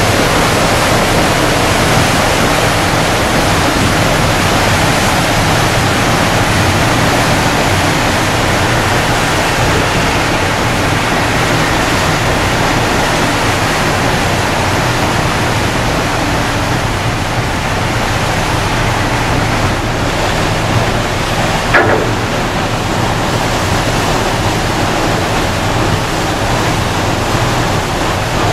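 Car ferry's propeller wash churning the water as the ship pulls away from its berth: a loud, steady rushing over a low, steady hum from the ship's engines. A single short knock sounds about three-quarters of the way through.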